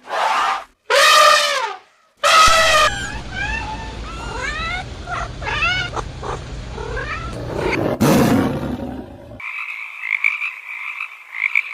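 A sequence of different animal calls cut together: three drawn-out, wailing pitched cries in the first three seconds, then a stretch of many short rising chirps over a low hum, then a steady buzzing trill near the end.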